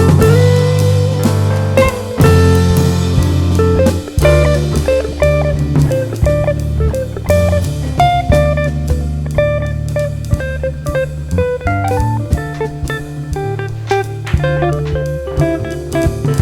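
Background music: plucked guitar over a drum kit and sustained bass notes, with a steady beat.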